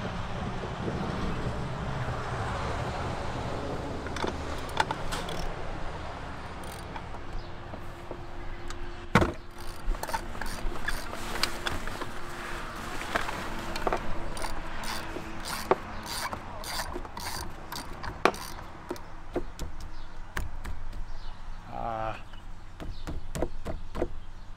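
Sharp clicks, knocks and rattles of hands working on a bass boat's bow trolling motor and its mount hardware, scattered irregularly after a low steady rumble in the first few seconds, with a brief squeak near the end.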